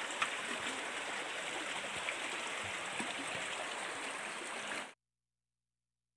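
Shallow stream running over stones, a steady rushing of water. It cuts off suddenly about five seconds in, leaving silence.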